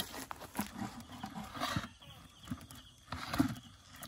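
Irregular knocks and rustles of a net crab trap being shaken out over a plastic bucket that holds the caught crabs and shrimp.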